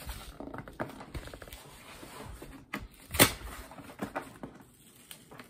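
Hands scratching, rubbing and pulling at the flaps of a cardboard shipping case, a run of small scrapes and clicks, with one sharp snap about three seconds in.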